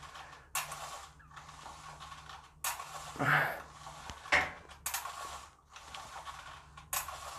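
Seat-belt retractor straps of a homemade dumbbell supporter paying out and reeling in as the dumbbells are pressed up and lowered, with sharp mechanical clicks about every two seconds.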